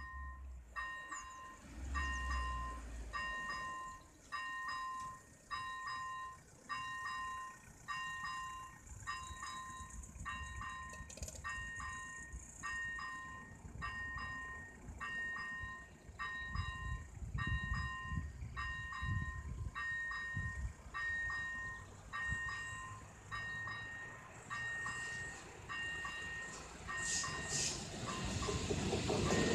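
AŽD ZV-01 electronic level-crossing bell ringing steadily, a two-tone ding about once a second, warning that the crossing is closed for an approaching train. Near the end the rumble of the oncoming train grows.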